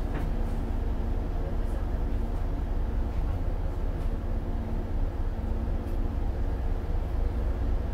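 Onboard sound in the vestibule of a JR 475 series express-type EMU motor car: a steady low rumble with a constant hum, and a few light clicks.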